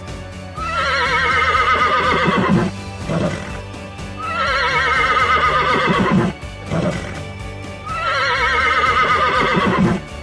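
Horse neighing: three long, quavering whinnies of about two seconds each, evenly spaced.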